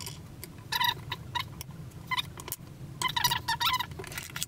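Short squeaks and scrapes of a wooden ruler and a PVC pipe being handled on a desk, several times, over a low steady hum.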